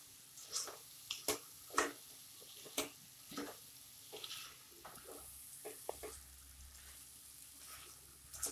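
Black non-stick spatula stirring raw rice and vegetables in a non-stick kadhai as the rice is roasted, giving irregular soft scrapes and taps against the pan over a faint sizzle.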